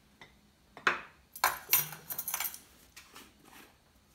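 A ring of metal measuring spoons jangling and clinking as it is handled, in a few short bunches of clinks.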